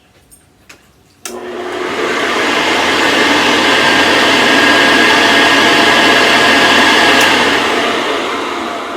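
Vintage Hoover Convertible U4005 upright vacuum cleaner switched on with a click about a second in, its motor spinning up to a loud, steady whine and rush of air, then switched off near the end and winding down. It is the machine's first run after unboxing, and it runs well.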